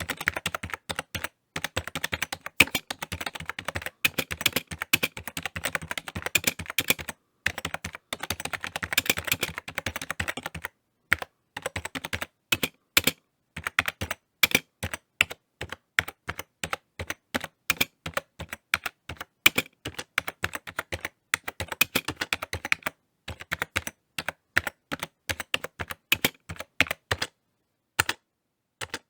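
Typing on a computer keyboard: fast runs of key clicks broken by short pauses, with a longer pause near the end.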